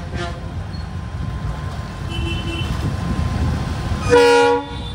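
A WDP4D diesel-electric locomotive (EMD 16-710 two-stroke diesel) runs past with a steady low engine and wheel rumble. Near the end it sounds its horn in one loud, short, multi-note blast.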